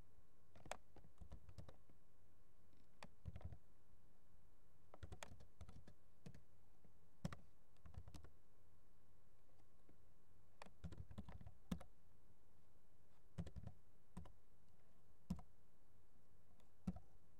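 Computer keyboard being typed on in short irregular bursts of keystrokes with pauses between, a few single strokes standing out louder.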